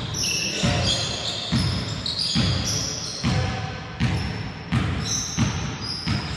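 Volleyball game in a gym: a ball thumping about once a second, with sharp sneaker squeaks on the court floor.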